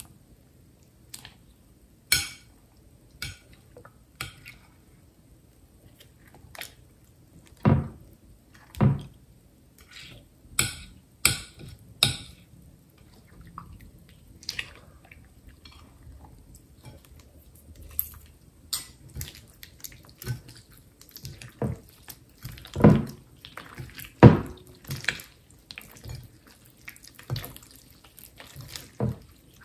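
Wet, sticky slime being stirred and pulled by hand in a glass bowl: irregular squelches and sticky pops, often a second or more apart.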